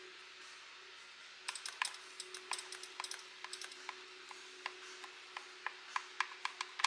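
Knife slicing through a tray of brownies, its blade tapping and clicking against the metal baking pan as it cuts. The light, irregular clicks begin about a second and a half in and run on in a quick uneven series, over a faint steady hum.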